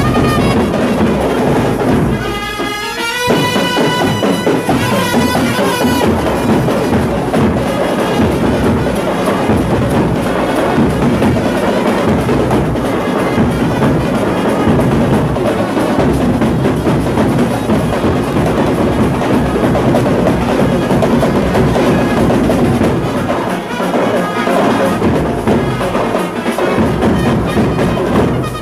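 Loud Tamil kuthu dance music with heavy drumming and percussion, a melody line standing out a few seconds in.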